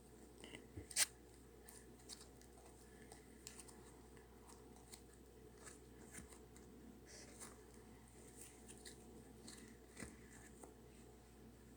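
Slime mixed with clay being handled and squeezed, making faint, irregular small clicks and crackles, with a sharper click about a second in and another near ten seconds.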